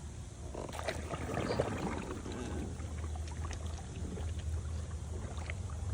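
Robotic pool cleaner going into pool water: splashing and bubbling as water pours in and around it, strongest in the first few seconds and then dying down, over a steady low hum.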